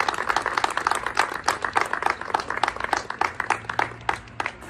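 A small crowd applauding with dense hand claps that thin out to a few scattered claps and die away near the end.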